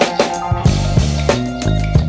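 Background music with a steady drum beat and a stepping bass line.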